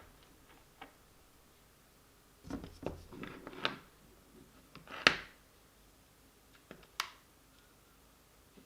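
Small parts of an RC touring car's rear hub assembly being handled and pushed into place by hand: a cluster of light clicks and rubbing about two and a half seconds in, then a single sharp click about five seconds in and another about seven seconds in.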